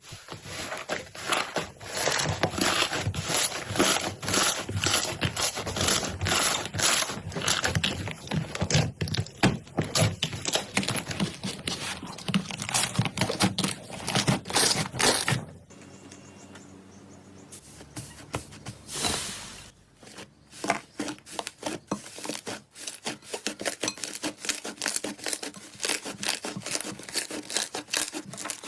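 Slime being squeezed and pressed by hand: a dense run of sticky crackling pops, with a quieter pause a little past halfway before the popping starts again.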